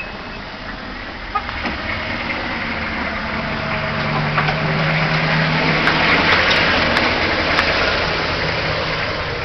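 Snowplow truck's engine running as the truck plows, its note growing louder toward the middle and fading near the end, over a broad scraping hiss. Its reversing beeps stop right at the start.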